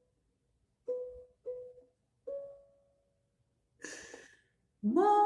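Single notes plucked on a ukulele, three of them in the first half, each ringing out and fading. A short breathy burst follows, then near the end a woman's voice sliding up into a loud, held, tearful sung note.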